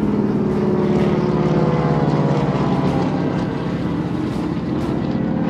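Jet aircraft flying overhead in formation, their engines making a loud, steady drone that drifts slightly in pitch as they pass.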